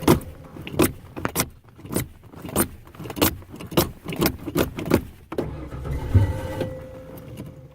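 Irregular series of sharp clicks and knocks, about two a second, from a Ford Ranger being coaxed to start. Near the end comes a short stretch of steady noise with a faint hum, which fades away without the engine catching.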